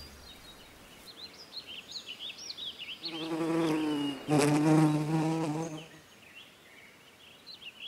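Cartoon nature ambience: birds chirping, with a buzzing insect droning for about three seconds in the middle, briefly breaking off once.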